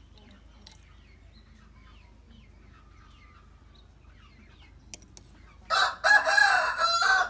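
Faint bird chirps, then near the end a rooster crows once, loud and drawn out over about a second and a half.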